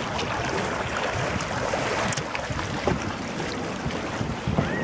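Kayak paddles dipping and splashing in lake water, under a steady rush of wind on the microphone.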